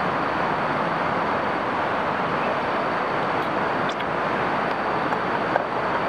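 Steady rushing of river water, an even hiss with no rhythm or change. A few faint light clicks in the second half.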